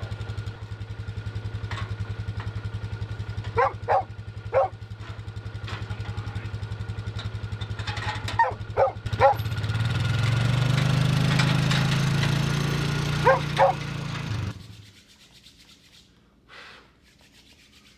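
A dog barks in short clusters of two or three over the low, steady hum of a Polaris Ranger side-by-side's engine idling. The engine gets louder for a few seconds past the middle, then everything cuts off abruptly to quiet room tone.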